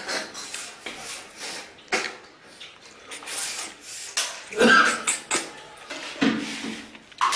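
Irregular wet slurping and sucking noises of cooked snails being eaten out of their shells, in short separate bursts, the loudest a little past the middle.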